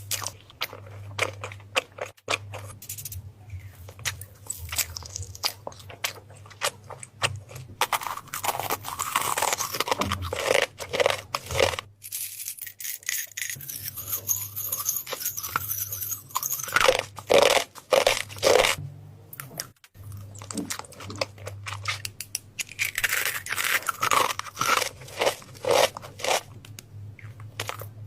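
Close-miked crunching and crackling: a dense run of sharp cracks, with a low steady hum underneath.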